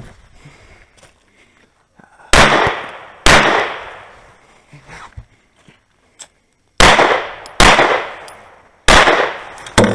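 Semi-automatic pistol firing five loud shots outdoors, each with a short echoing tail: a pair about a second apart, then three more a few seconds later, with a smaller sharp report near the end.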